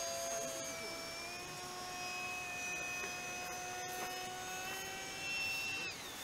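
Electric ducted fan of a radio-controlled MiG-29 model jet whining in flight on only one of its two fans, the other having died. Its pitch steps down about a second in, creeps back up, and glides down sharply near the end.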